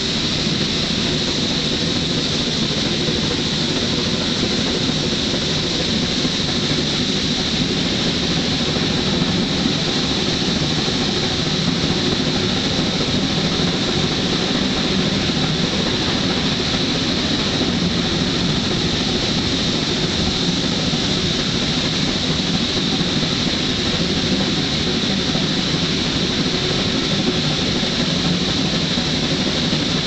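Shay geared steam locomotives working hard upgrade: a steady, loud run of exhaust and train running noise, heard from an open passenger car.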